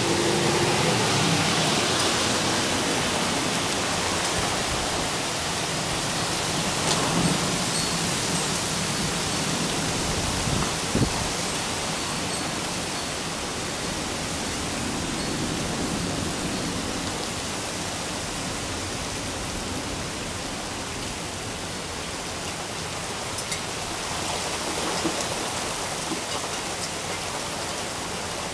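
Rain falling steadily in a thunderstorm, an even hiss with a few sharp taps, the clearest about eleven seconds in.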